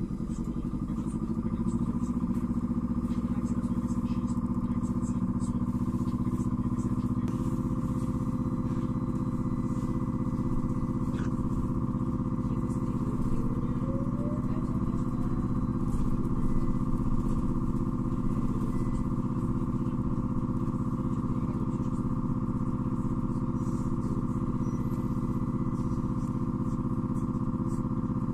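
Cabin of a moving LAZ E301D1 trolleybus: the electric traction drive's steady hum of several held tones over road rumble. The tones shift about seven seconds in, and a faint rising whine comes in around the middle.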